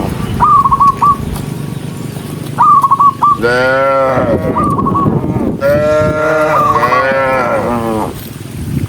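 Cattle mooing: a short moo a few seconds in, then one long drawn-out moo. Bursts of short high chirping calls come through between the moos.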